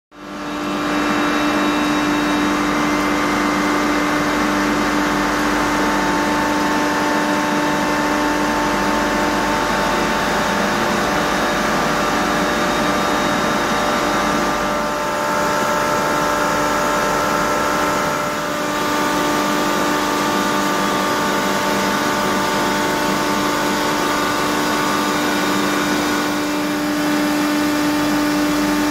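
Sabroe SAB 163 BF ammonia screw compressor, driven by a 90 kW, 2960 RPM electric motor, running steadily at full (100%) capacity. It makes a loud, even drone with one strong low tone and several fainter higher tones that hold steady.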